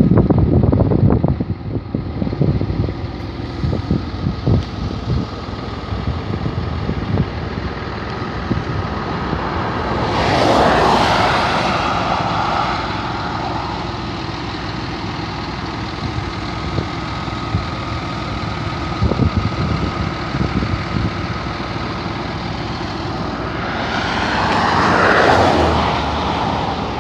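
Wind rumbling on the microphone in the first couple of seconds over a steady outdoor hum; a motor vehicle passes by about ten seconds in, and another near the end, each swelling up and fading over a few seconds.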